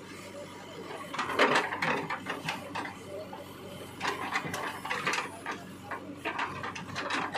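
Backhoe loader bucket scraping and dragging through wet soil and clods, a crackling clatter that comes in three spells.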